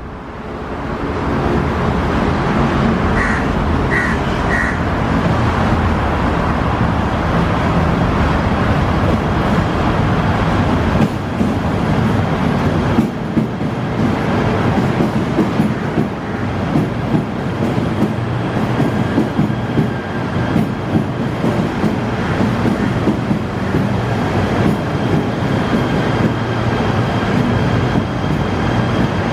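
KTM Komuter Class 92 electric multiple unit running into the station and along the platform: a steady rumble of wheels on rail with a low hum, and a faint high whine joining near the end as it slows. About three seconds in come three short high-pitched sounds.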